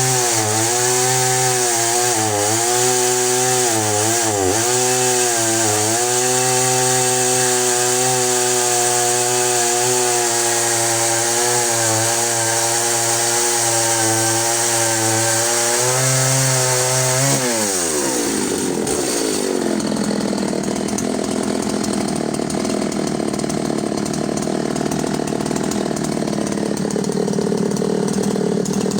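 Husqvarna Rancher 61 two-stroke chainsaw held at full throttle while cutting through larch, its engine note dipping briefly a few times as the chain loads in the wood. About seventeen seconds in, the throttle is released and the engine winds down quickly to a steady idle.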